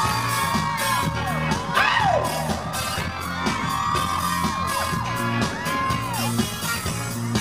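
Live pop music through a concert sound system, with a steady beat and a repeating bass line, and fans in the crowd screaming and whooping over it.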